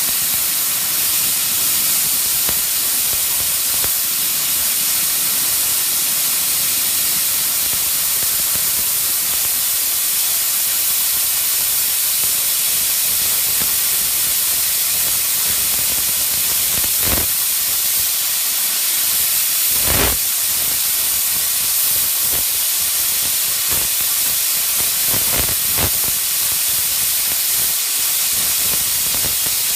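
Steady loud hiss, with a few dull knocks in the second half.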